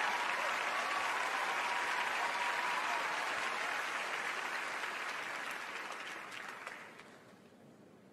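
Studio audience applauding, the clapping dying away about seven seconds in.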